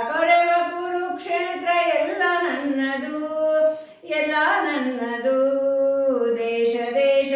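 A woman singing a Kannada patriotic song unaccompanied, holding long notes, with a short break for breath about four seconds in.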